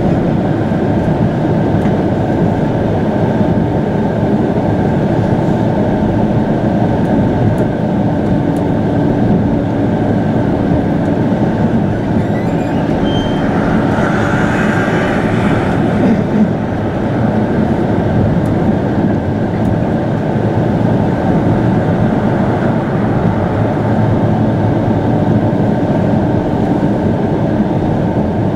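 Chiba Urban Monorail Urban Flyer 0 series suspended monorail running at speed, heard inside the car: a steady rumble from its rubber-tyred bogies in the overhead beam with a faint motor whine. About halfway through a higher-pitched whine swells briefly, then fades.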